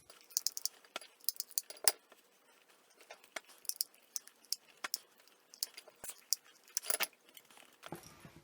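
Scattered light clicks and taps of hands handling small craft pieces while gluing flowers and a leaf onto a burlap-covered milk carton, with small clusters of clicks near the start, about two seconds in and about seven seconds in.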